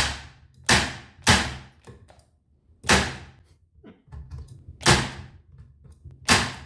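Parkside PET 25 C3 electric nailer firing 32 mm nails into wood at its highest impact force: six sharp shots, the first three in quick succession and the rest more spaced out, each driving the nail all the way in.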